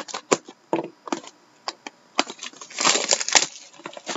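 A small blade slitting the plastic wrap of a sealed trading-card box gives a series of short sharp clicks and scrapes. About two seconds in comes a longer burst of crinkling and tearing as the cellophane and cardboard are pulled open.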